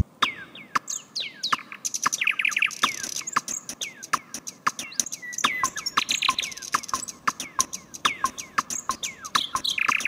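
Quick, high bird chirps and twitters, several a second, each note sweeping down in pitch, with short runs of rapid notes now and then. These are birdsong sounds laid into an ambient music soundtrack.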